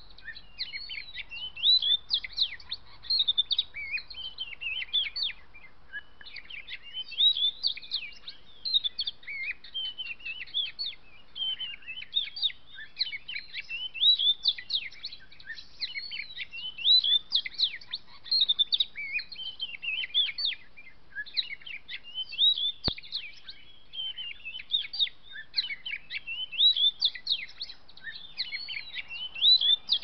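Oriental magpie-robin (kacer) singing a long run of varied, high whistled phrases with a few short breaks. One sharp click comes about two-thirds of the way through.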